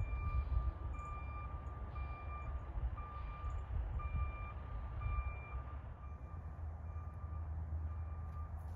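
Delivery truck's reversing alarm beeping, about one beep a second, each beep a single steady tone, over a low rumble.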